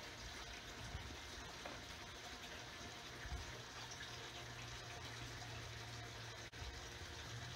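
Steady low-level hiss of background noise, with a low hum in the middle stretch and a couple of light knocks; it briefly cuts out about six and a half seconds in.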